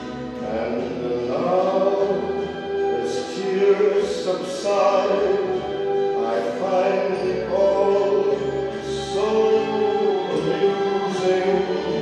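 A song playing: singing in long held notes over instrumental accompaniment.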